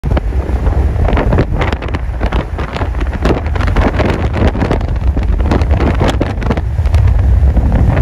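Wind buffeting the microphone: a loud, uneven rumble that surges in irregular gusts.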